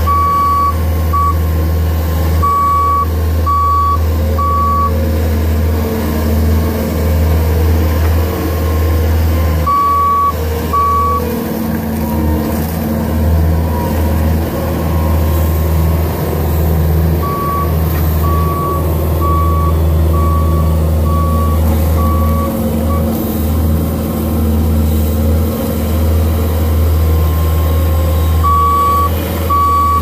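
Bobcat S770 skid-steer loader's diesel engine running steadily as it moves hay bales, with its reversing alarm beeping about once a second in several runs, each time the machine backs up.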